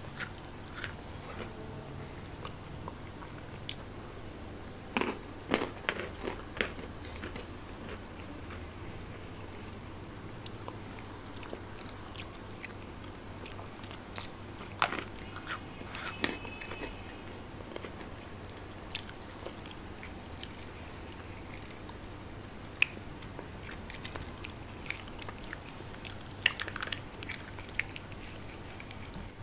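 Close-miked eating: scattered short mouth clicks, smacks and chewing, with small plastic snack cups and a plastic spoon clicking as they are opened and eaten from. The sounds come in small clusters.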